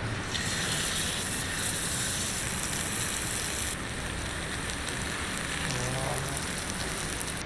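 Fish frying in hot oil: a steady sizzle that eases a little about four seconds in.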